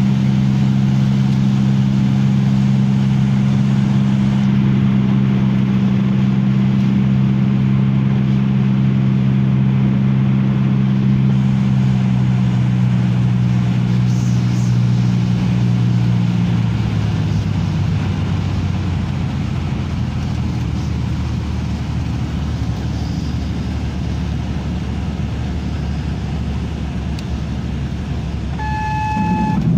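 Light aircraft's piston engine and propeller droning steadily, heard inside the cabin during the landing. About halfway through, the note drops to a lower pitch as power comes off, and a short beep sounds near the end.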